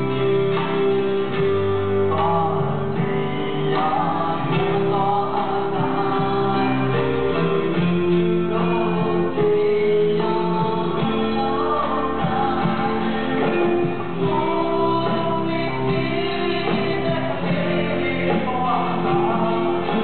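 Live band music: a man singing a melody while strumming an acoustic guitar, over held chords and a bass line.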